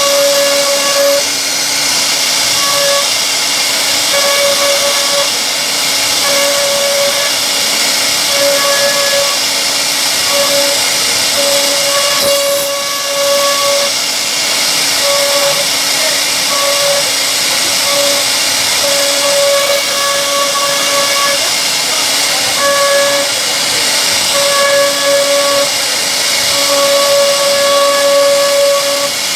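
CNC wood router carving a solid wood door: a steady loud high hiss of the spindle cutting, with a whine that keeps switching on and off, for under a second to a few seconds at a time, as the machine moves.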